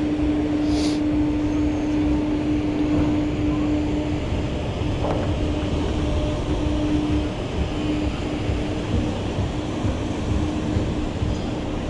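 Fabbri Booster thrill ride running with its arm turning slowly, heard from the gondola: a steady rush of wind and machinery noise with a low rumble, and a steady hum that breaks into short repeated pulses from about four seconds in.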